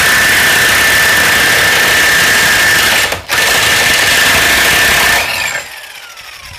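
DCK KPB22C corded electric impact wrench hammering on a bolt torqued to 500 Nm, undoing it, with a steady high whine over the hammering and a short break a little after three seconds. About five seconds in the trigger is released and the motor's whine falls as it spins down.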